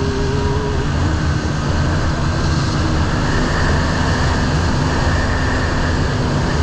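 Steady wind noise buffeting a helmet-mounted action camera on a moving motorcycle, with the engine's even drone underneath.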